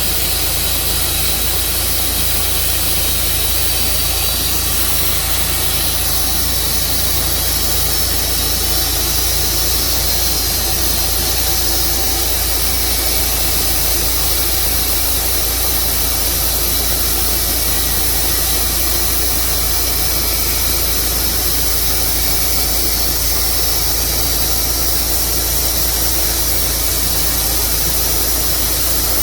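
Tru Cut sawmill running steadily with its engine under load, sawing through a black walnut log.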